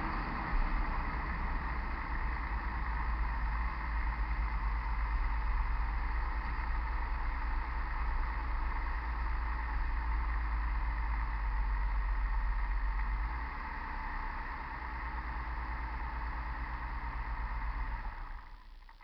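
2000 Chevy Blazer 4x4 running on the road with a steady grinding from the front end, which the owner is trying to trace. The low rumble drops away about thirteen seconds in, and the sound fades out near the end.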